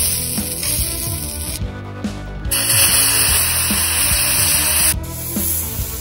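A loud sizzling hiss as lemon juice and salt hit a hot griddle; it breaks off once and then stops abruptly near the end. Background music plays under it.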